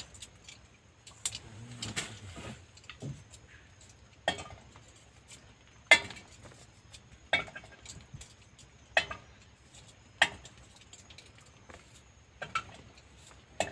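Cooking pot and utensils clinking and knocking, a sharp clack roughly every one to two seconds, some with a brief metallic ring.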